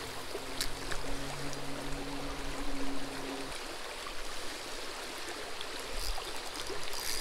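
Shallow creek water running over rocks, a steady rush. For the first half there is also a faint steady hum.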